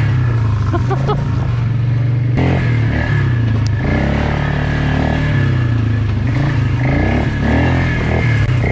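Polaris Magnum 325 ATV's single-cylinder four-stroke engine running while the quad is ridden, its pitch shifting up and down with the throttle.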